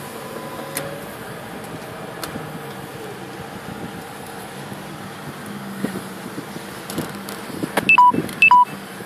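Steady road and engine noise inside a moving car's cabin. Near the end come two short electronic beeps about half a second apart.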